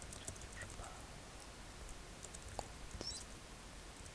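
Faint, close-miked whispered mumbling that comes and goes in short fragments, with scattered soft clicks and ticks. One sharper click comes about two and a half seconds in.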